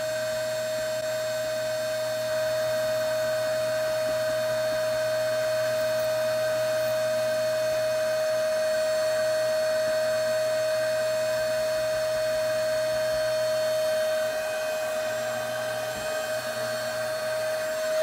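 Vacuum cleaner running steadily with a strong high whine, its stocking-covered nozzle sucking up loose scenery grass. The level wavers slightly near the end.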